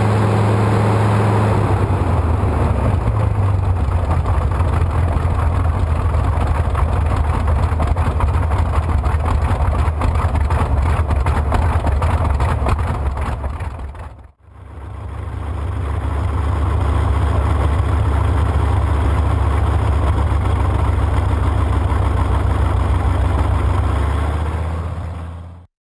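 Radial aircraft engine running on a trailer test stand, its propeller turning: a loud, steady, deep rumble that settles a little lower in pitch about two seconds in. About halfway it fades out and straight back in, and it fades away at the very end.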